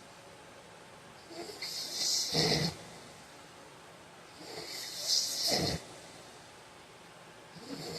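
A man snoring in his sleep, about one snore every three seconds: two full snores and a third starting near the end. Each is a hissing breath that builds to a louder, short snort at its end.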